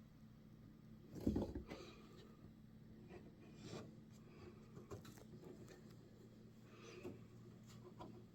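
Faint knocks and rubbing, like things being handled, over a low steady hum; the loudest knocks come in a short cluster about a second in, with a few lighter clicks after.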